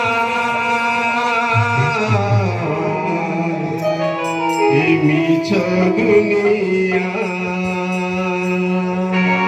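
Devotional Odia kirtan bhajan: a man sings into a microphone over long held instrumental notes, his melody gliding between pitches.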